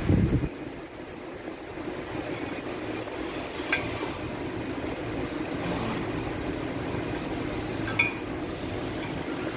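Workshop teardown sounds: a low thump at the very start, then a steady machine hum with two sharp metallic clinks of tools or parts, about four seconds apart.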